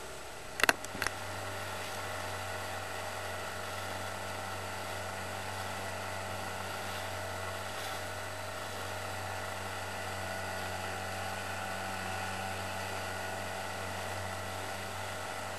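Dinghy's outboard motor running steadily underway, a constant droning hum over the rush of the ride. Two or three sharp clicks near the start, after which the motor sound gets slightly louder.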